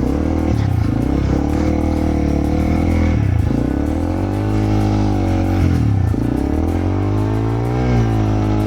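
Honda CRF300L's single-cylinder engine revving up and down under load as the bike works through deep mud. The throttle drops off briefly twice, about three and a half and six seconds in, then opens again, with the pitch climbing near the end.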